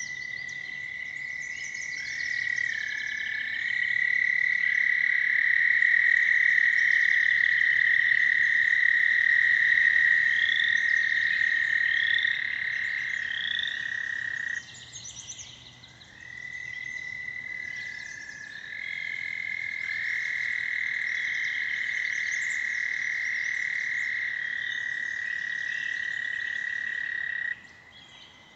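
Several American toads giving long, steady musical trills that overlap at slightly different pitches. Each trill runs for many seconds. The chorus cuts off abruptly about halfway, starts again, and stops just before the end. A few short rising chirps sound over it near the middle.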